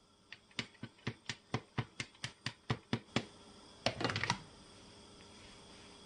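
Metal hand-operated flour sifter clicking as it is worked, about four clicks a second for some three seconds. Then a brief clatter, which is the sifter being set down in a glass bowl.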